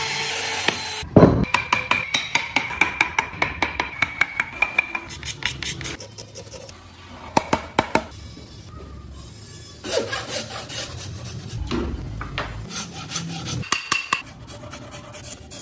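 A hand tool rasping wood in quick back-and-forth strokes, about five a second, in two spells with a pause between. It opens with about a second of loud hissing noise.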